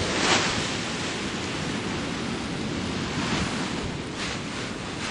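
Strong hilltop wind buffeting the microphone in gusts, a steady rush that swells about a third of a second in and again near the end.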